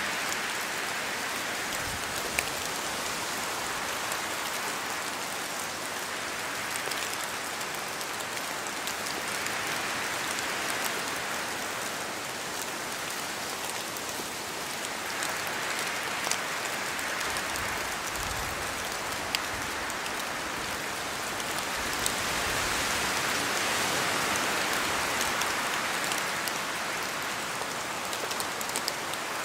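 Rain falling through spruce trees: a steady hiss with scattered sharp drop ticks, and wind swelling and easing every few seconds, loudest about three-quarters of the way through.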